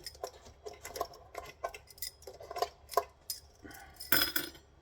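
Small metal parts and tools clicking and clinking as they are handled during the teardown of a solar inverter, with a louder clatter near the end.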